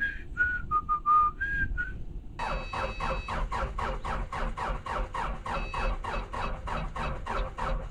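A few short whistled notes, then a skid steer's cold diesel engine cranking over on the starter without catching: a fast, even chug of about five strokes a second, with a thin high tone coming and going.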